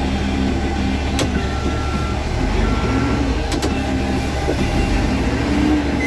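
Case 430 skid steer's diesel engine running steadily under load while it drives the hydraulic pickup broom sweeping the lot, with two sharp clicks, about a second in and midway through.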